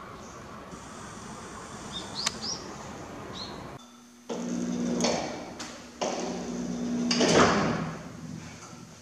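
Quiet garden ambience with a few short bird chirps, then, after a sudden cut, a room with a steady low hum and rushing swells of noise, the loudest about three seconds after the cut.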